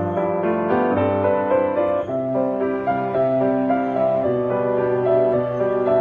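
Background piano music, with notes held and changing steadily.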